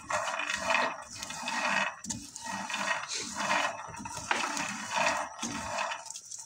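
Dry corn kernels and groundnuts rattling and scraping in a nonstick frying pan as a wooden spatula stirs them, in repeated strokes of about a second each with short gaps, while they dry-toast brown.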